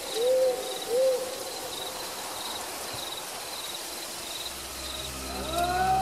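Two short hooting calls about a second apart, each rising and falling in pitch, over a faint, evenly repeating insect chirping. From about four and a half seconds a low music drone comes in, joined by slowly gliding tones near the end.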